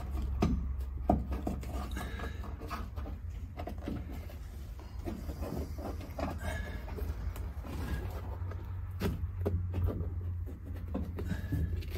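Headliner fabric rustling and rubbing as it is pulled taut and smoothed by hand, with a few light knocks, the sharpest about a second in. A steady low hum runs underneath.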